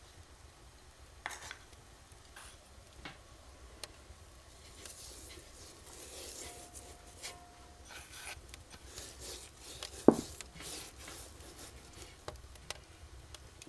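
Hands placing rosemary sprigs on a raw whole duck in a cast-iron pot: soft rubbing and handling with scattered small clicks. One sharp knock with a brief ring about ten seconds in is the loudest sound.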